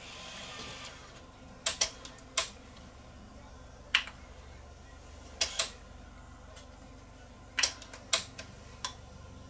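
Irregular sharp plastic clicks and clacks, about a dozen, from a DAT cassette being handled and loaded into a Sony PCM-R300 DAT deck and its transport buttons being pressed.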